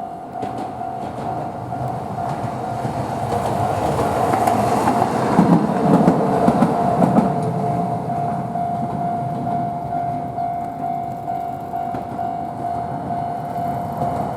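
Toden Arakawa Line tram passing over a level crossing, its wheels and running gear loudest about five to seven seconds in, with a level-crossing warning bell ringing steadily throughout.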